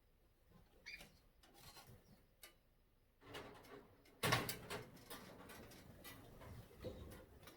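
Decorations being handled and shifted, rustling with a sharp clunk about four seconds in, over faint chirps from the aviary birds.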